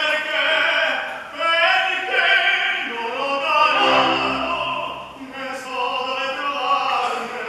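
An operatic tenor singing with vibrato, with a lower part sounding briefly about four seconds in.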